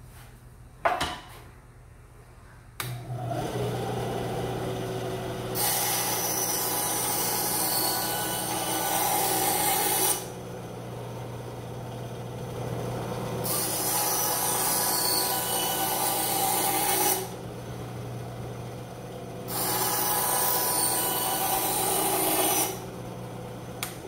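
Ryobi BS904G 9-inch benchtop bandsaw starting up about three seconds in and running with a steady hum. The blade then rasps through a block of wood in three cuts of a few seconds each, and the saw runs free between them.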